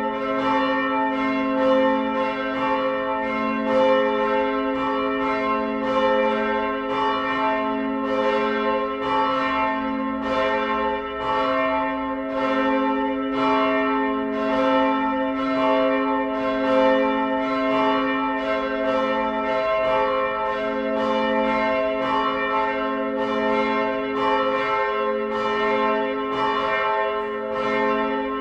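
Several church bells ringing continuously, struck in quick succession about two to three times a second, their tones overlapping into a sustained peal.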